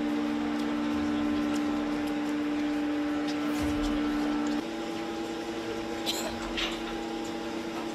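Steady machine hum of two close tones. About four and a half seconds in it steps slightly higher and quieter, and a couple of faint clicks follow near the end.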